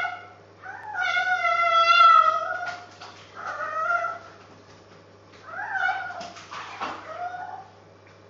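Cavalier King Charles spaniel howling, its owner's "singing": one long, wavering, high-pitched howl about a second in, then several shorter howls, with a few brief knocks between them.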